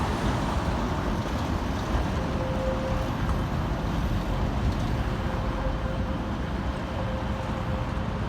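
Helsinki tram running: a steady rumble with a faint steady whine above it.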